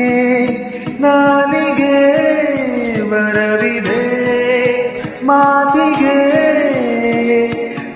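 A man singing a Kannada film song in long held notes that slide downward in pitch. New phrases begin about a second in and again just past the midpoint.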